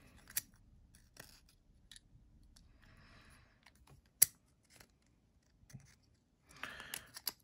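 Small metal parts of a folding knife clicking as they are fitted together by hand during reassembly, a few light clicks spread out with one sharper click about four seconds in, and a short run of clicks and handling noise near the end.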